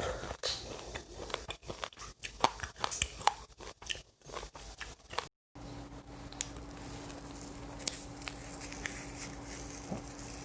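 Close-miked crunching and chewing of a mouthful of seeds, a quick run of sharp crackling bites. About five seconds in it cuts off abruptly and gives way to a steady low hum with only a few faint clicks.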